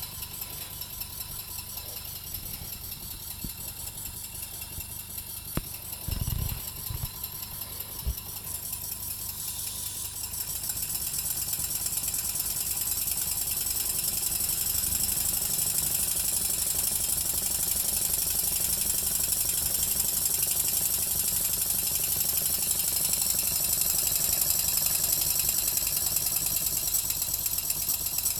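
PM Research model mill engine, a single-cylinder horizontal engine, running on compressed air with a rapid exhaust chuff and rattle. It picks up speed and gets louder about a third of the way in, then runs on steadily at speed. A brief thump comes a little after the start.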